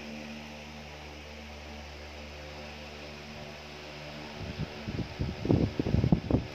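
A steady low electrical hum in the room. From about four and a half seconds in it is joined by louder, low, muffled voice sounds.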